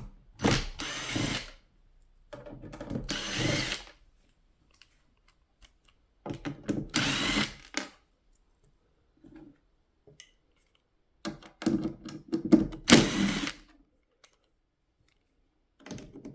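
Power drill-driver running in several short bursts of one to two seconds each, backing screws out of the unit's casing.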